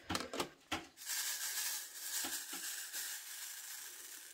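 Hundreds of resin diamond painting drills rattling and sliding inside a plastic drill tray as it is shaken. A few sharp clicks at first, then a steady fine rattle that fades toward the end.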